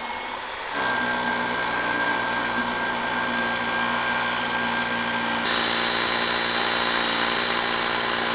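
Corded hammer drill boring into a concrete floor: the motor runs lightly at first, then from about a second in it drills steadily at full load with a constant pitch.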